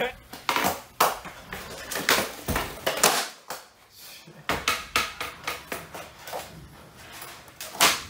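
Skateboard clattering on a hard floor in a small room: the board knocking down, wheels rolling, and sharp knocks at irregular intervals. The loudest knock comes near the end, as the tail is popped for a jump.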